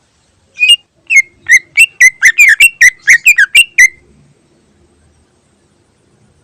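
Cucak ijo (green leafbird) singing: a rapid run of about a dozen loud, sharp whistled notes over about three seconds, then it stops.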